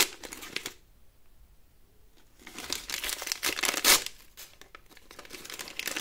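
Plastic wrapper of a L.O.L. Surprise So Mini toy being torn open and crumpled by hand: crackly crinkling and tearing, with a pause of about a second and a half shortly after it starts, then picking up again and loudest a little before four seconds in.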